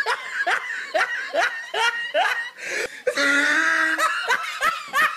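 A woman laughing in a run of short repeated bursts, with a longer held laugh a little past the middle, her mouth covered by a cloth.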